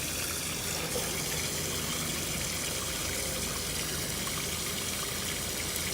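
Water running steadily out of an open valve into a test pit, draining the well's pressure tank so its pressure falls toward the pressure switch's cut-in point.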